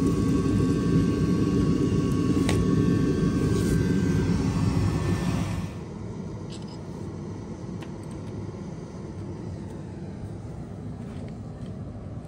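A loud, steady rumble with a few thin steady tones above it cuts off suddenly about six seconds in. Quieter steady background noise follows, with a few faint metallic clicks from a ring spanner working the old compressor motor's mounting bolts.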